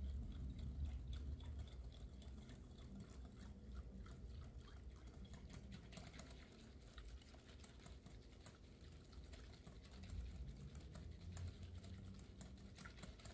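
Wire whisk beating a milk-and-yeast mixture in a glass bowl: a faint, quick, irregular run of small clicks as the wires tap the glass, with a soft sloshing of liquid.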